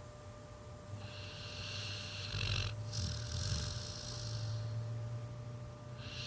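Pit bull snoring in her sleep: a low rumbling snore with an airy hiss on each breath. Two long snoring breaths run back to back from about a second in, and the next begins near the end.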